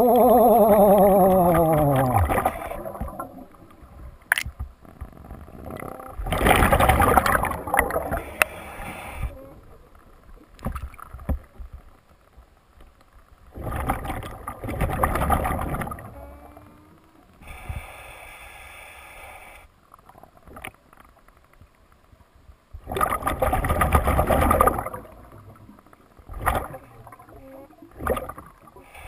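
Scuba diver's regulator breathing heard underwater: long hissing bursts of exhaled bubbles every several seconds. It opens with a falling tone.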